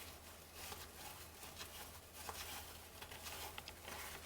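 Soft handling of 1989 Fleer baseball cards: faint scattered flicks and rustles as cards are slid and flipped one after another, over a low steady hum.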